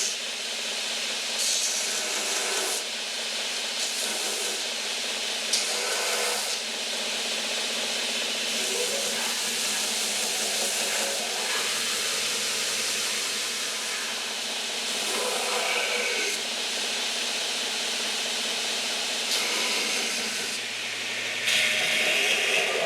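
A pecan wood knife handle being shaped on a sander: a steady abrasive hiss with a few brief louder patches as the wood is pressed against the abrasive.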